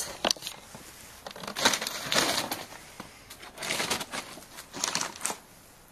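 Brown paper bag of potatoes rustling and crinkling in irregular bursts as potatoes are handled, with a few sharp clicks and knocks.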